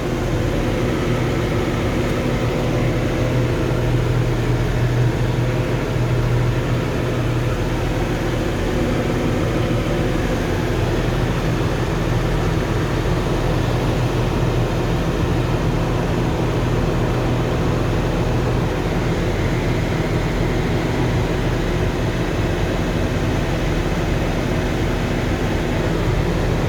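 John Deere 710D backhoe's diesel engine running steadily, with the cab air-conditioning blower fan on and blowing hard.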